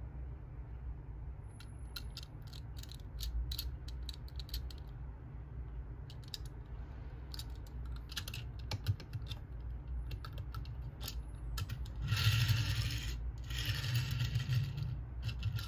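Tomica die-cast Nissan Skyline toy car handled in the fingers, giving light scattered clicks and taps, then rolled twice across a wooden tabletop near the end, its small wheels giving two short rolling rumbles.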